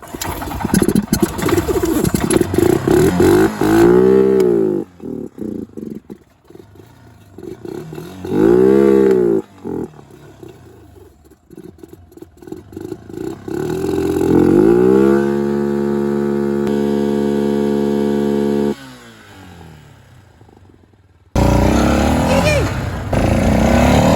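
ATV engine revving: two quick rises and falls, then held at a steady high speed for about four seconds before it drops back. The engine is still running after the 4-wheeler was sunk in mud and water. Near the end a louder, rougher engine noise starts abruptly.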